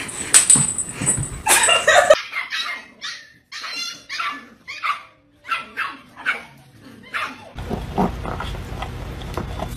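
Dogs barking in a quick run of short, high barks, a little under two a second, then a low rumbling noise for the last couple of seconds as two dogs tussle.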